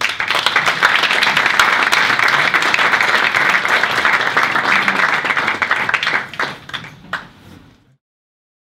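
Audience applauding: dense clapping from many hands that thins to a few scattered claps near the end.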